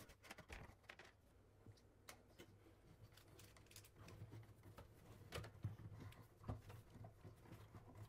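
Faint scraping and rustling of yellow 12-gauge Romex cable being pushed by hand through the back of a wall outlet box into the wall cavity, with scattered light clicks.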